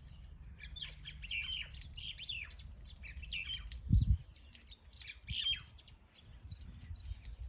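A group of feeding birds chirping and squawking continuously in quick, overlapping calls. A low thump about four seconds in.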